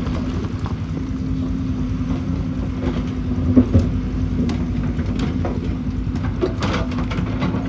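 Excavator's diesel engine running steadily under load, with a couple of sharp knocks about three and a half seconds in and scraping clatter near the end, typical of the bucket working on stones.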